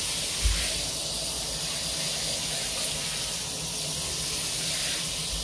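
Glacier Bay modern square 8-inch showerhead running, its single spray hissing steadily as it falls on the tiled shower wall, with a soft low bump about half a second in.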